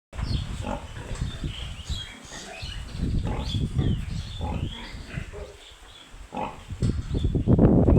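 Piglet squeals and grunts: many short, high squeals over low grunting, getting louder near the end.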